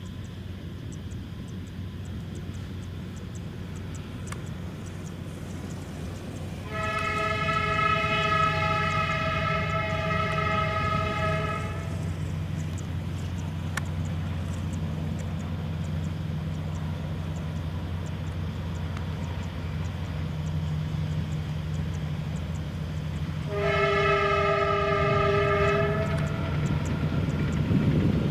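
Diesel locomotive running with a steady low engine drone, sounding its multi-tone horn twice: a long blast of about five seconds a quarter of the way in, and a shorter blast near the end.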